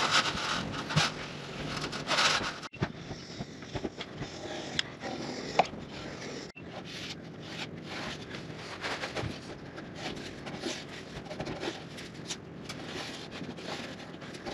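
Fingertip rubbing and scraping along baseboard trim, smoothing a thin bead of caulk into the joint, with small clicks of hand and handling noise.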